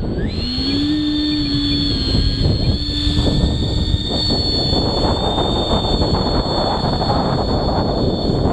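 70 mm electric ducted fan of an E-Flite F-16 jet spooling up just after the start and then running with a steady high whine over a rushing air noise, which grows louder about five seconds in.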